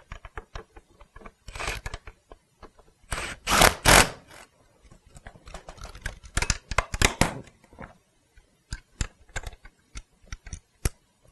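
Metal clicks, clanks and scraping as a socket extension turns a bolt into a car seat's steel frame while the seat back is fastened on. A louder rasping burst comes about three to four seconds in, then a dense run of quick clicks.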